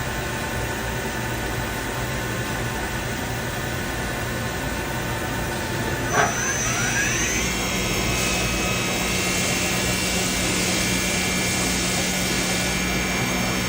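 CNC milling machine running with a steady hum; about six seconds in, a short click and the spindle whine rises in pitch, then holds at a steady higher tone.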